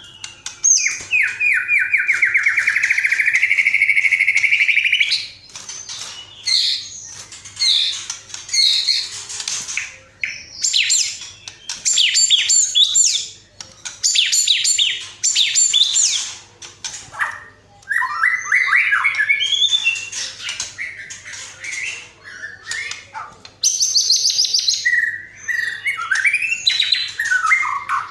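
Bird song from a masteran training recording: a long fast buzzy trill for the first few seconds, then a run of varied bursts of chirps, whistles and rapid trills with short pauses, typical of a white-rumped shama's song mixed with the calls it is meant to learn.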